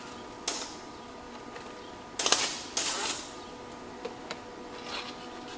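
Stick-welding arc crackling in short bursts, as tack welds are struck on the Cat D5C dozer's blade yoke: a sharp crack about half a second in, the loudest crackling around two to three seconds, then a few small ticks. A steady hum runs underneath.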